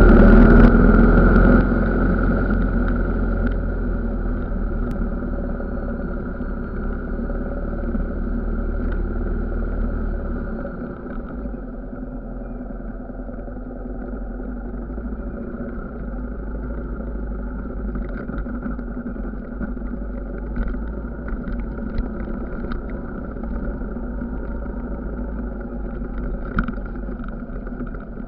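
Off-road trail motorcycle's engine running steadily at low speed along a rough track, loudest at the start and easing off about ten seconds in, with a few short sharp ticks later on.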